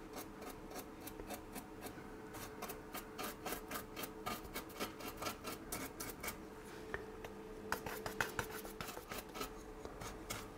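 Small paintbrush dry-brushing paint over a rough plaster model rock: rapid, scratchy strokes of the bristles, several a second, over a faint steady hum.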